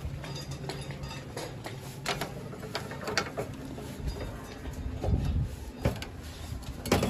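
Irregular light clicks, scrapes and knocks of hands and tools working on roofing material, with a duller thump about five seconds in.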